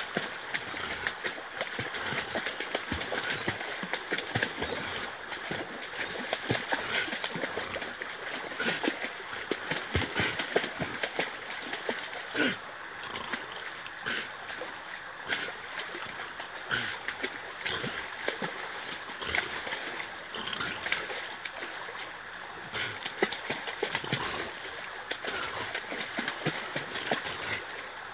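Staffordshire Bull Terrier thrashing and splashing in lake water as she tugs at an overhanging tree branch with her teeth: continuous churning water with irregular sharp splashes.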